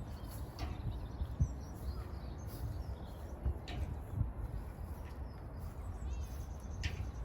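Small birds chirping and calling, with a quick run of notes about six seconds in, over footsteps on a park path and a steady low rumble.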